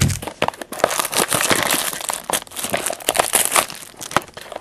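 Clear plastic wrapping of a trading card pack crinkling and crackling as it is handled, with a steady run of quick small crackles.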